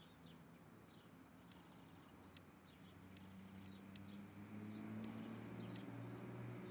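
Small birds chirping and twittering faintly: many short high calls and a few quick buzzy trills. A low hum underneath grows louder about halfway through.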